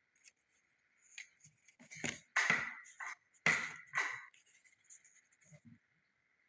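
Hands handling the ruffler foot and its packaging: a few sharp clicks and rustles, loudest about two and three and a half seconds in, over a faint steady high whine.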